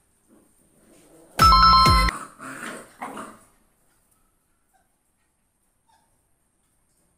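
Wire mesh pen panel rattling and ringing with a metallic clang about a second and a half in as a puppy scrambles over it, then two softer rattles.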